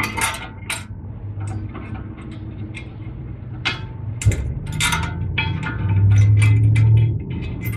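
Brake pads being pried and worked out of a caliper bracket: irregular metal clinks and scrapes of the pad and a pry tool against the bracket and its clips, with a louder low rumble about six seconds in.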